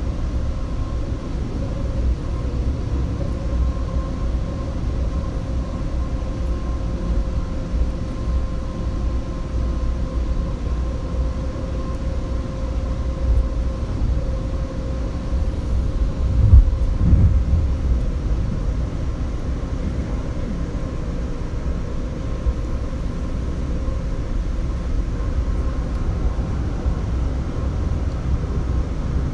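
Seattle Link light rail car running between stations, heard from inside: a steady low rumble with a faint steady whine. The rumble swells louder for a second or two about 16 seconds in.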